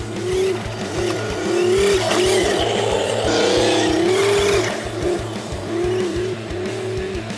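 Simulated engine sound from the RC truck's electronic sound module, revving up and down in a string of short blips with one longer rev in the middle, with a rushing noise over the middle few seconds as the 6x6 drives over the dirt.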